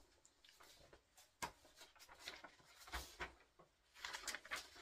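Printed paper sheets rustling as they are handled and leafed through: soft, scattered crinkles, busiest near the end.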